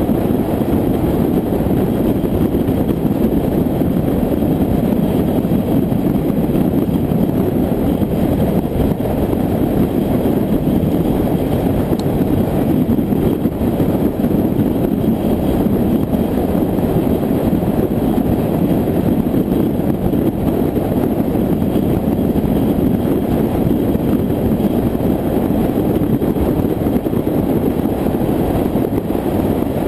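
A car cruising at highway speed: a steady, low rumble of wind, tyre and engine noise that holds even throughout.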